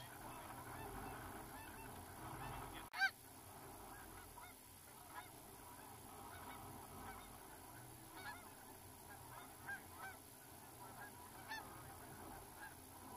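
Canada geese honking as flocks approach: many short calls overlapping, mostly faint and distant, with one louder honk about three seconds in.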